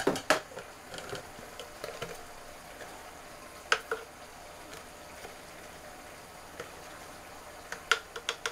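A few light clicks and taps as a plastic salt container and its lid are handled while salt is measured out: a pair about four seconds in and a quick cluster near the end, over a faint steady background hiss.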